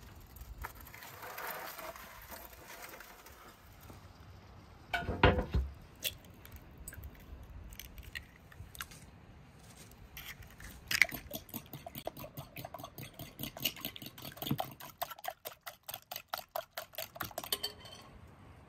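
Fork beating eggs in a glass bowl: a fast, even run of clinks against the glass, about six a second, that stops shortly before the end. Before it, a metal baking tray scrapes on the floor of a clay oven, and a thump comes about five seconds in.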